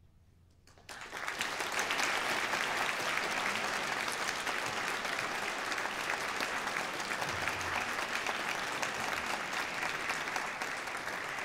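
Concert audience applauding, breaking out suddenly about a second in and holding steady.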